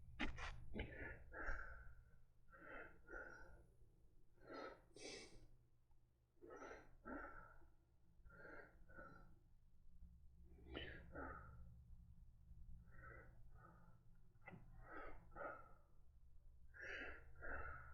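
Faint, wheezy breathing close to the microphone, a pair of breaths roughly every two seconds, from a man with COPD who has not taken his medication.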